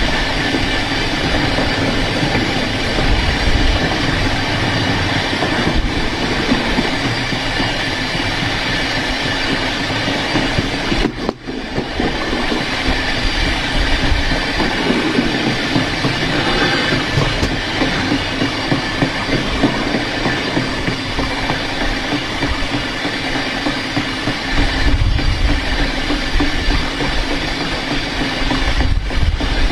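Railway carriage's steel wheel rolling along the rail at speed, a loud, steady running noise with one brief dip about eleven seconds in.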